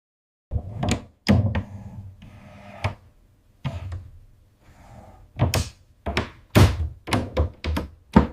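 A series of about fifteen irregular sharp knocks and thuds, some followed by brief scraping noise, beginning about half a second in after dead silence.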